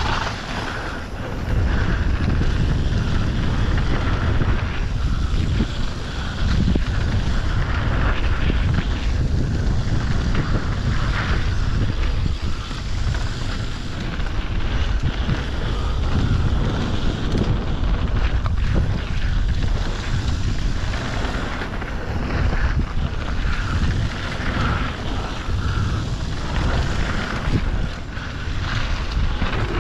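Wind buffeting the microphone of a camera on a mountain biker riding a dirt trail at speed, mixed with the bike's tyres rolling over the dirt. A steady low rushing that rises and falls a little with speed.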